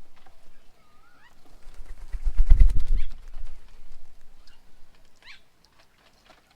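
Birds at a feeding table: a couple of short calls that bend in pitch and light tapping clicks, with a loud low flutter lasting under a second about two seconds in.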